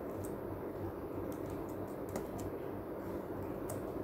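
Steady low background hum with a few faint, scattered clicks, like light taps or typing.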